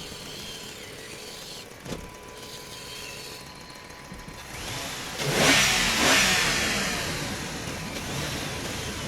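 An engine sound that swells to a loud peak about five seconds in, its pitch gliding, then fades away; a short click comes about two seconds in.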